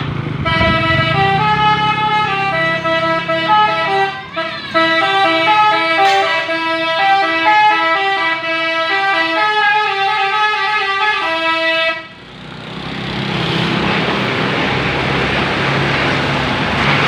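Indonesian bus 'telolet basuri' musical air horn playing a tune of short stepped notes for about twelve seconds, with a brief break about four seconds in. It then stops abruptly and a loud, even rushing noise takes over.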